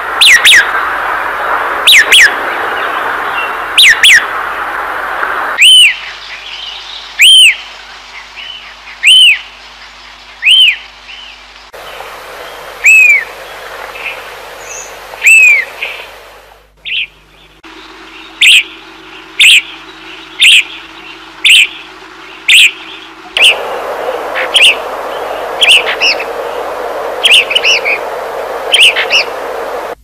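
Songbirds calling: a run of short, clear whistled notes, each arched or slurring downward, repeated about once a second. They come from several recordings spliced together, so the background hiss changes suddenly a few times.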